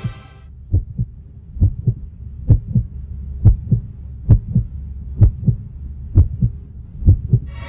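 Heartbeat sound effect: pairs of low thumps, lub-dub, repeating a little under once a second, eight beats in all.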